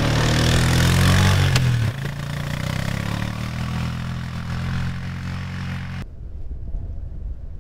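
Four-wheel ATV engine running as the quad pulls away, loud for about the first two seconds and then farther off. The engine sound cuts off abruptly about six seconds in, leaving a faint low rumble.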